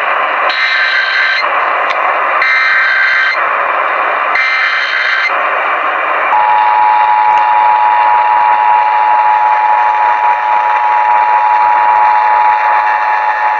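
Emergency Alert System test tones received over AM radio, with static hiss underneath. First come three short bursts of SAME digital header data, about two seconds apart. About six seconds in the steady two-tone EAS attention signal starts and holds.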